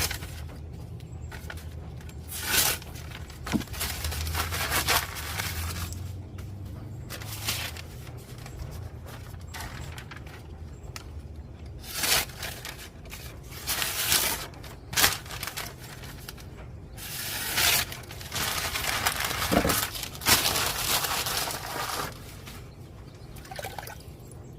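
Small hand-held sandstone rubbed along a machete's edge: irregular scraping strokes, some short and some lasting a few seconds, with pauses between.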